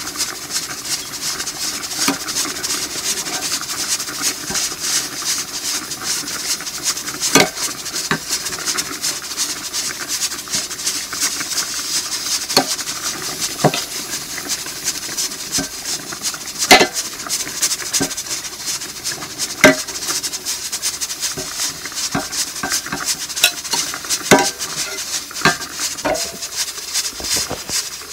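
Fish and vegetable broth boiling in a stainless steel pot with a steady hiss, broken by a number of sharp metal clinks of a ladle against the pot.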